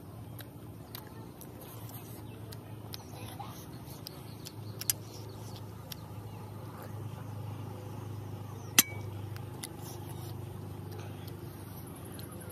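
Eating sounds: a hand working food on a plate and light clicks of the meal, with one sharp clink about nine seconds in as a drinking glass is set back down on the table. A steady low hum runs underneath.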